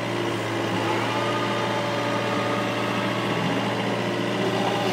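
Excavator's diesel engine running steadily with its hydraulics working as the machine travels on its tracks in high-speed travel mode, with the fast-travel pedal held down.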